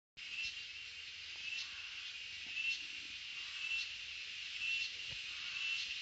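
Cicadas calling in chorus: a steady, high, shrill buzz that swells into a brighter pulse about once a second.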